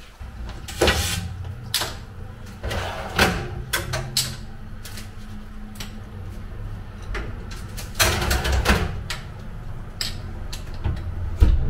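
Handling and movement noises: a run of brief knocks, scrapes and rustles, the strongest about a second in, around three seconds in and around eight seconds in, with a low steady hum underneath.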